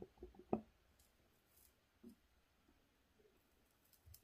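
Near silence: a few faint ticks and taps as a soldering iron melts solder onto the negative terminal of an 18650 battery cell, the clearest tick about half a second in.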